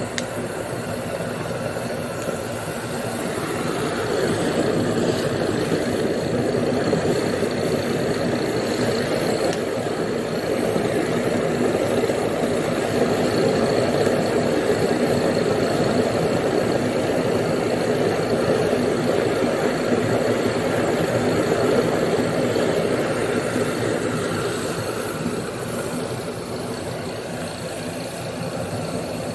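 Waste-motor-oil furnace running: the oil burner, fed by a spray gun and a small air compressor, makes a steady rushing noise with a motor-like hum under it. The noise swells a few seconds in and eases slightly near the end.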